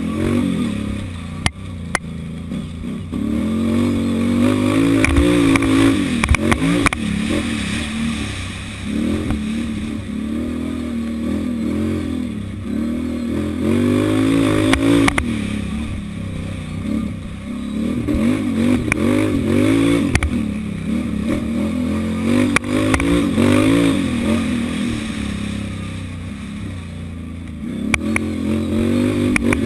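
Can-Am ATV engine heard from on board, its revs climbing and dropping again and again as the quad is driven hard, with scattered knocks and clatter from the machine.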